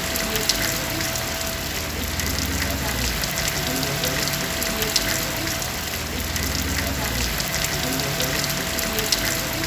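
Steady rainfall: an even hiss of rain with many small, sharp drop ticks scattered through it.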